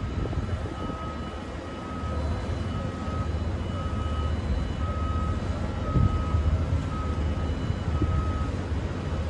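A low, steady vehicle-engine rumble with a high electronic beep repeating about once a second over it.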